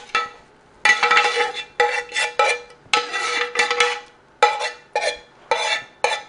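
A metal spoon scraping the last of a squash casserole mixture out of a pan into a glass dish: a quick run of about a dozen short scrapes and knocks, each followed by a brief ringing.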